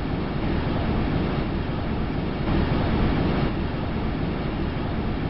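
Wind on Mars picked up by NASA's InSight lander's seismometer, its vibrations turned into audible sound. It is a steady rushing noise, heaviest in the deep range, and it fades out at the end.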